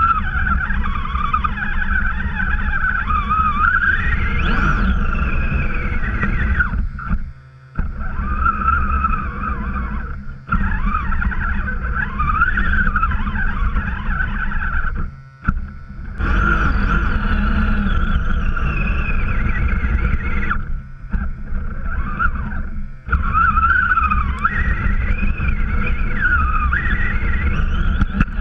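Axial radio-controlled truck's electric motor and gears whining, the pitch rising and falling with the throttle, over a heavy low rumble as it ploughs through deep snow. The sound drops out briefly about five times when the throttle is let off.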